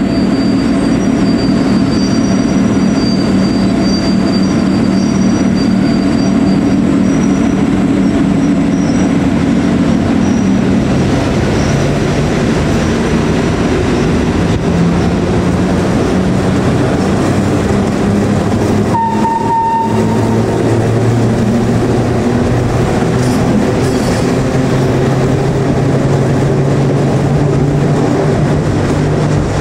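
FS E.656 rheostatic electric locomotive running with its twelve traction motors, a steady hum over train running noise. The hum shifts to a lower pitch about a third of the way through, and a brief high tone sounds about two-thirds of the way in.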